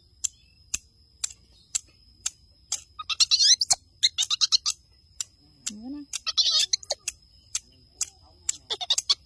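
Baby monkey crying out in short, high-pitched wavering squeals, twice a few seconds apart, over a steady ticking about twice a second.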